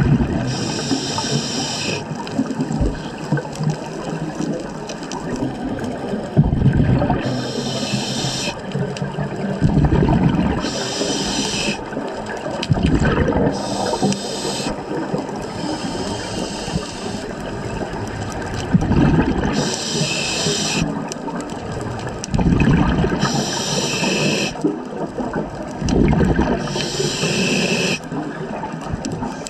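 Scuba regulator breathing heard underwater: a hissing inhalation about every three to six seconds, about seven in all, alternating with low gurgling bursts of exhaled bubbles.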